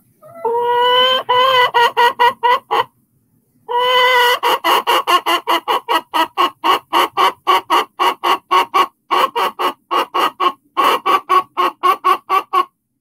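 A barred hen squawking loudly: a drawn-out call, then a quick run of short clucking calls at about three or four a second, all of it twice over. These are angry chicken sounds; she is upset because another hen is sitting in the nesting box she wants to lay in.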